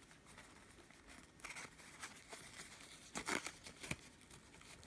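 Faint rustling and crinkling of firecracker packaging being opened by hand to take one out, with a few short, louder rustles, the strongest about three seconds in.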